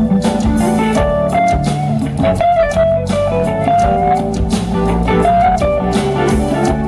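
Live jazz band: an amplified hollow-body archtop electric guitar plays a single-note lead line with sliding notes, over bass and a drum kit.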